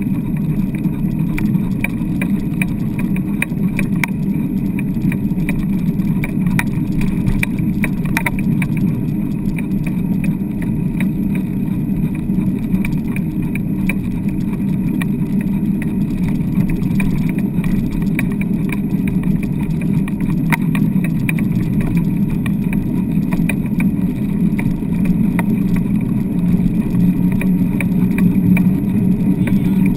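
Steady rumble of a dryland mushing rig rolling over wet beach sand, with light rattles and clicks.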